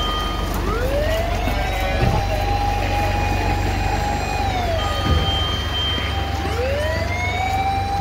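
Japanese fire engine siren wailing: a rising tone that holds high, falls away about five seconds in, and rises again near the end.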